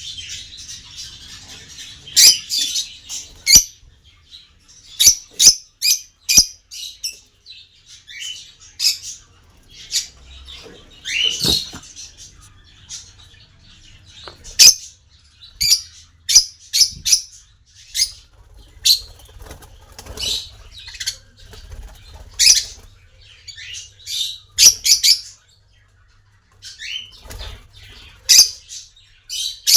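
Small pet parrots chirping and squawking: a steady run of short, high, loud calls coming irregularly, with brief lulls.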